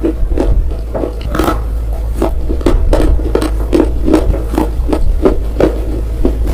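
Red slate being chewed close to the microphone: dry crunches at about three a second, over a steady low hum.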